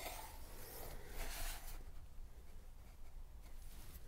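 Pencil drawn along a straight edge across a plywood panel, marking a cut line: a faint scratching, strongest for under a second about a second in.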